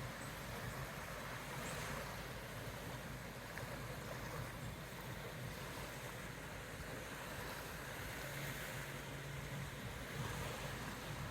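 Faint, steady wash of wind and waves, with a low hum underneath.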